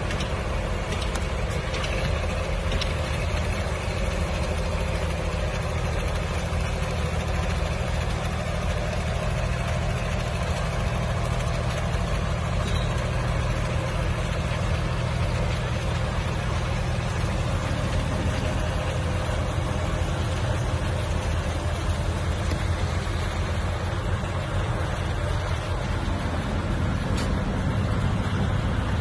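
Liebherr LG 1750 mobile crane's diesel engine running steadily, a constant low hum with no change in pitch.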